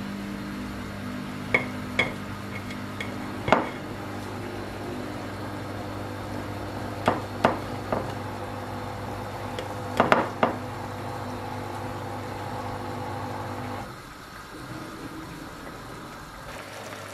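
A knife clicking and tapping against a ceramic plate while cooked chicken is cut into chunks: a handful of sharp, scattered clicks. Under them is a steady low electrical hum that stops near the end.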